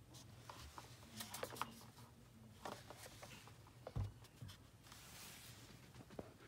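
Faint handling noise of a Google Home smart speaker in the hand: small clicks and rubbing on its plastic casing, with a soft thump about four seconds in.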